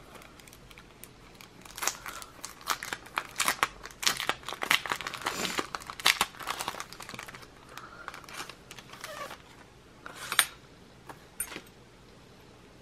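A small paper packet being torn open and its contents pulled out: irregular crinkling and tearing of paper, busiest in the first half and thinning out towards the end.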